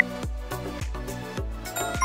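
Electronic background music with a steady kick-drum beat. A short beep closes the countdown right at the start, and a bright chime near the end signals the correct answer.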